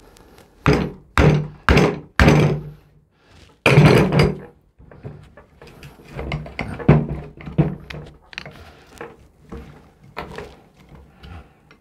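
Hammer striking a screwdriver wedged behind a seized car A/C compressor clutch plate to tap it off its shaft: four sharp metal knocks in the first couple of seconds, a louder, longer knock about four seconds in, then lighter, irregular taps.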